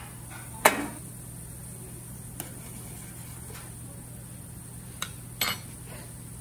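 Metal spoon clinking against a hammered aluminium saucepan of water on a gas stove as salt is added and stirred in: one sharp clink just under a second in, a faint one a little later, and two more near the end, over a steady low hum.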